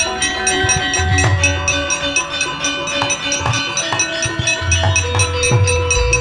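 Javanese gamelan playing fast accompaniment for a wayang kulit fight scene: low drum strokes and held metallophone tones over a rapid, steady clatter of metal clicks, several a second. A new sustained ringing tone enters about five seconds in.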